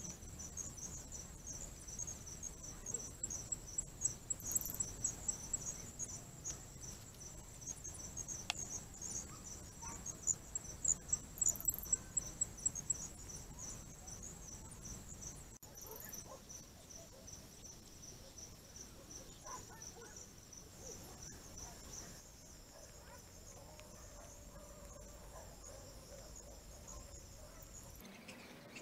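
Night insects trilling in a steady, high-pitched pulsing chorus. The pulses are strongest through the first half and thin to a fainter, even trill later.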